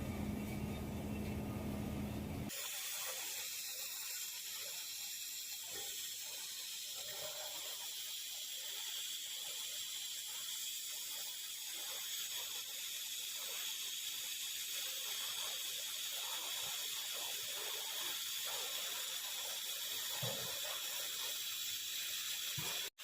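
TIG welding arc running with a steady high-pitched hiss. About two seconds in it takes over from a fuller noise with a low hum.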